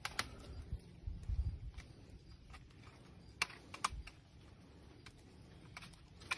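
Faint, scattered small clicks and scrapes of hands handling and untwisting thin wire tied round wooden fence stakes, with a few low rumbles.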